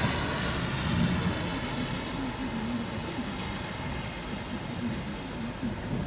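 Rain falling on wet pavement, with the tyre hiss of a vehicle on the wet road fading away over the first two seconds and a low rumble of traffic underneath.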